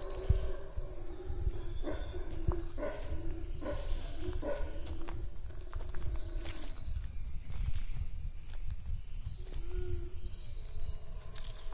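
Steady, high-pitched drone of rainforest insects, one unbroken tone with a fainter higher one above it, over a low rumble and a few soft knocks.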